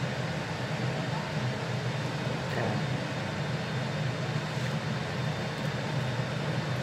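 Steady whirring hum of a fan running, with no change in pitch or level throughout.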